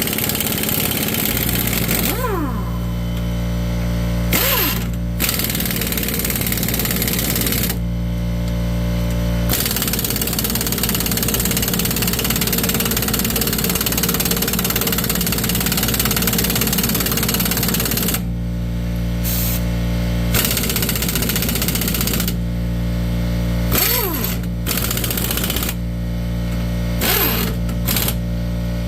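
Air compressor motor running steadily while it fills, with an air-powered tool, most likely an impact wrench, run in long bursts over it on the rusted leaf-spring U-bolt nuts. Several bursts end with the tool's pitch falling quickly as it spins down.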